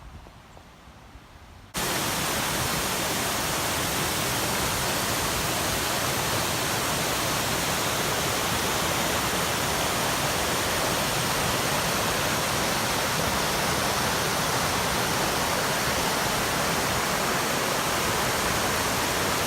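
Tanyard Creek Falls: a waterfall's steady, loud rush of falling water, cutting in abruptly about two seconds in after a faint, quiet stretch.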